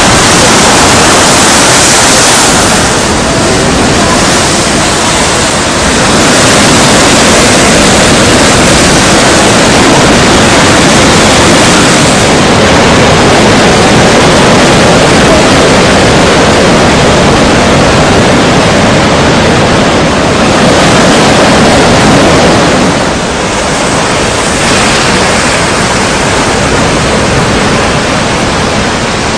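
Strong wind blowing on the microphone at the seashore, a loud, dense rush of noise mixed with sea surf, easing briefly a few seconds in and again near the end before rising back.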